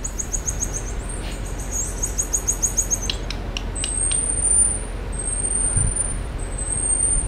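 Marmosets calling in high, thin voices. Rapid runs of short chirps come first, followed by three long whistles that rise slightly in pitch.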